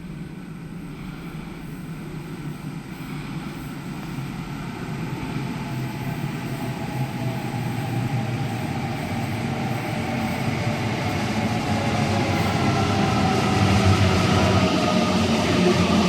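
Electric passenger train approaching, growing steadily louder. A whine from its motors comes in about six seconds in and strengthens over a low rumble.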